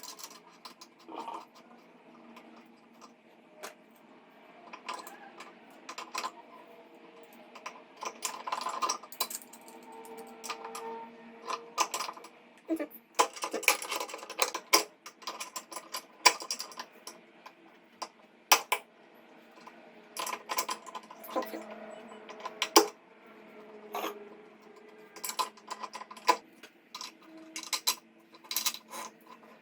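Irregular metallic clicks, clinks and light knocks as metal tap parts and tools are handled and fitted during a mixer tap repair.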